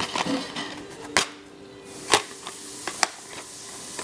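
Plastic DVD cases handled in the hands, giving several sharp clicks and taps, the loudest about two seconds in.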